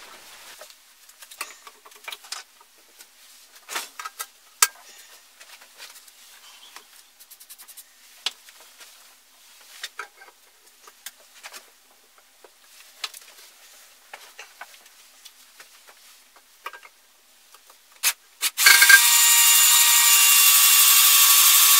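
Scattered clicks and knocks as the metal climbing spike is handled and clamped in a bench vise. About 18 seconds in, a cordless drill starts and runs steadily with a high whine, boring a hole into the spike from the inside.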